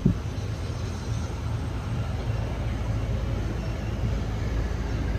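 Passenger train coach running along a station platform: a steady low rumble of wheels and running gear, growing slightly louder, with one short knock right at the start.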